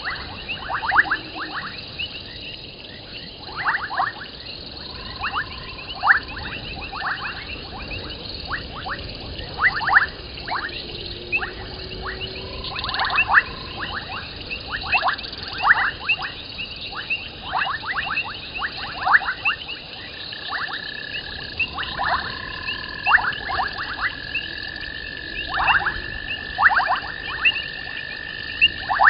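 Night chorus of frogs and insects: many short, sharp chirps repeating irregularly over a steady high pulsing trill, with a held whistle-like tone joining about two-thirds of the way in.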